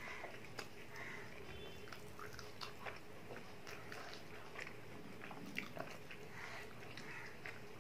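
A person eating a chicken burger: faint bites into the soft bun and chewing, with small wet mouth clicks.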